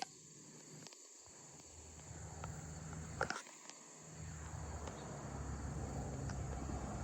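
Quiet outdoor background with a steady faint insect chirring, a low rumble building after about a second and a half, and one sharp click about three seconds in.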